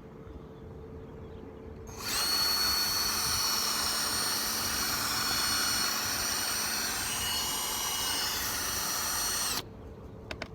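Small power drill running steadily for about seven seconds with a high whine, drilling out a rivet in a diecast model car. It starts abruptly about two seconds in and cuts off about a second before the end.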